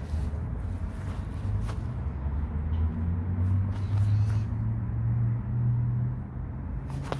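Small single-cylinder Briggs & Stratton mower engine running steadily, its pitch creeping up a little in the middle and easing back, with a sharp click near the end.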